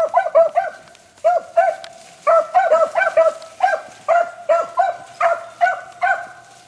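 Beagles giving voice on a rabbit's track: a fast run of short, clear barks, two to three a second, with some calls overlapping.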